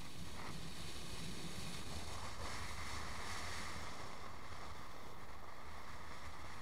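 Wind rushing over the microphone with road noise and a low hum from a vehicle moving along an asphalt road, at a steady level.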